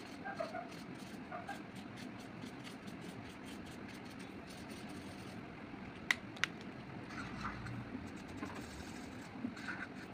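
Felt-tip marker scratching on paper in rapid short strokes, over a steady low background rumble. The strokes thin out about halfway through, and two sharp clicks follow close together.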